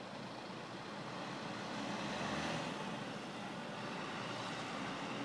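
Steady rumble and hiss of a truck engine running, swelling slightly about two seconds in.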